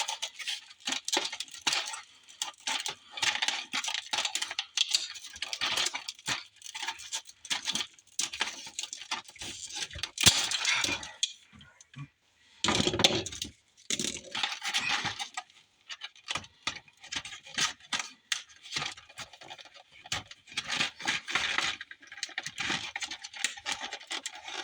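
Tin snips cutting open stiff packaging: a string of irregular snips, cracks and crackles, with a loud snap about ten seconds in.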